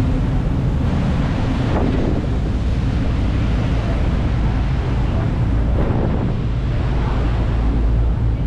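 Whale-watching boat underway: its engines make a steady low drone, while wind buffets the microphone and water rushes past.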